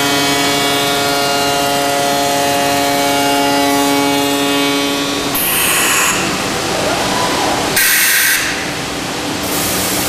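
CNC router spindle on a Busellato Jet Optima C21 working centre running with a steady high whine, which stops about halfway through. It is followed by three short bursts of hissing, the loudest about eight seconds in.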